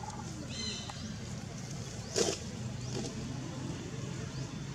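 A steady low hum with a few brief high chirping calls that slide down in pitch, and one short, loud, noisy sound about two seconds in.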